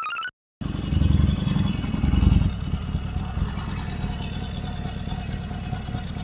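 Harley-Davidson Sportster 1200 Seventy-Two's V-twin engine running under way, cutting in after a brief silence. It swells louder twice in the first couple of seconds, then settles to a steady run.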